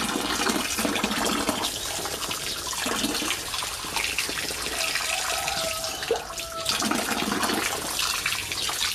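Water jetting from a hose into a shallow inflatable paddling pool, a steady splashing stream, with a child's hand in the water where the jet lands.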